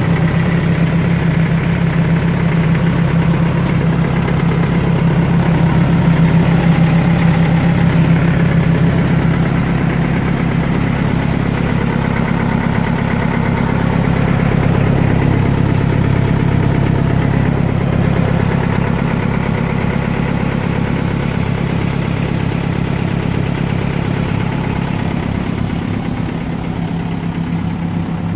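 Diesel engine of a Cat 430D backhoe loader running steadily at idle, with a constant low hum.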